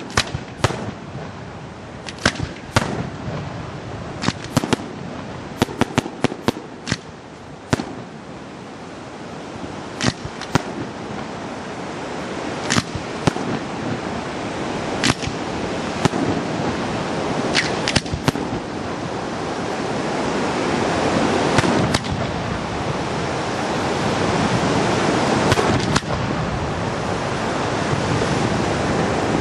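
Aerial fireworks: many sharp bangs of shells bursting in quick, uneven succession, giving way after about twelve seconds to a dense rushing noise that builds and grows louder toward the end, with only a few bangs over it.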